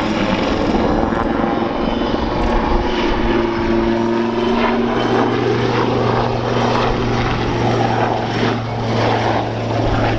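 Westland Lynx helicopter in flight: the main rotor and twin Rolls-Royce Gem turboshaft engines give a loud, steady drone with a low hum.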